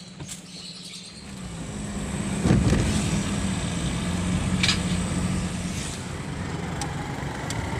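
Car engine and road noise heard from inside the cabin while driving: a steady low hum that builds up and comes in strongly about two and a half seconds in.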